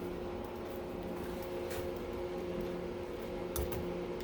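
A steady low machine hum, with a few light clicks and taps of small tools and parts being handled.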